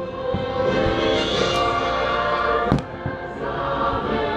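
Fireworks show music with sustained tones plays while fireworks burst, with one sharp bang about two and a half seconds in and a lighter one near the start.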